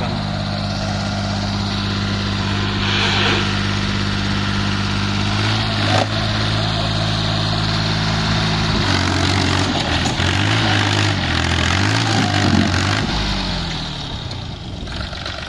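Force Abhiman 27 HP 4x4 mini tractor's engine working under load as it struggles to drive out of the spot where it is stuck. The note is steady at first, then wavers up and down from about nine seconds in, and eases near the end.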